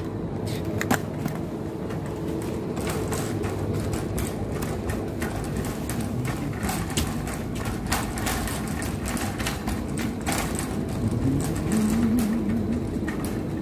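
Metal wire shopping trolley being pushed across a tiled supermarket floor: a steady rolling rumble with frequent rattling clicks from the wheels and wire basket.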